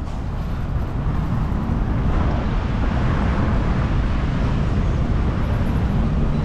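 Steady city street traffic noise, a continuous rumble of cars passing on a nearby road.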